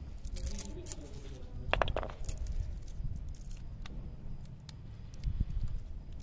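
Garlic cloves being peeled with a small knife: light, irregular clicks and crackling of dry skins over a plastic colander, with one sharper knock about two seconds in.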